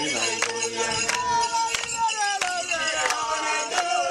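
Music: a sung melody over a steady clinking beat, about one and a half beats a second.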